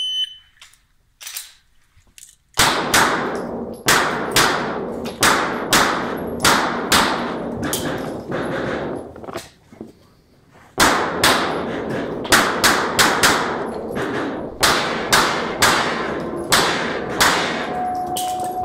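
A shot timer's start beep, then, about two and a half seconds later, a long string of rapid pistol shots from a Smith & Wesson M&P Pro C.O.R.E., echoing in an indoor range. The firing stops for about a second near the middle and then resumes.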